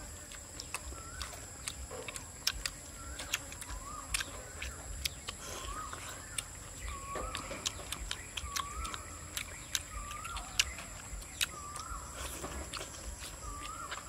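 A bird calling over and over, a short rising-and-falling note about once a second, over a steady high drone of insects, with sharp clicks of chewing close by.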